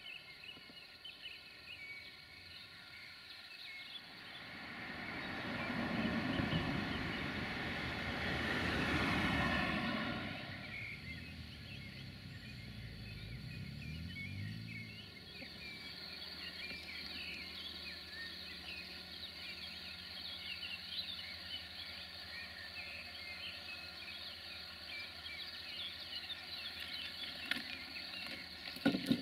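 Countryside ambience with birds chirping. A few seconds in, a vehicle swells past and fades away, its engine note falling. From about halfway, a steady low engine hum comes in, the distant diesel locomotive of an approaching passenger train.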